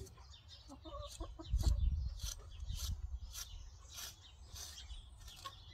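A brush drawn through a horse's long mane in a quick series of short, scratchy strokes. A low rumble comes through about one and a half seconds in.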